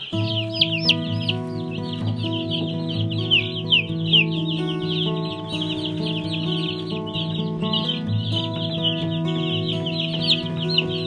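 A brood of few-days-old Cornish Cross broiler chicks peeping continuously, many high, falling peeps overlapping, with background music.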